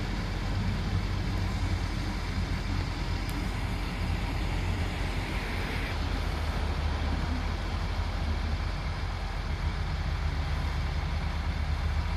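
Steady low vehicle rumble with a continuous hiss of road noise.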